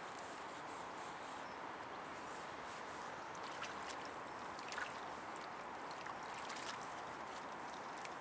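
Steady rush of running river water, with a few faint brief splashes from a hooked grayling thrashing at the surface.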